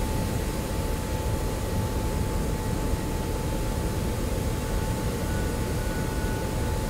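Steady industrial machinery noise in a steelmaking plant: a low rumble and hiss with a constant high whine, joined by a second, fainter whine about five seconds in.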